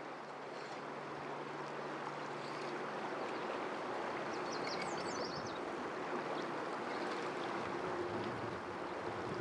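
Steady rushing of a river's current, with a short burst of high chirps near the middle.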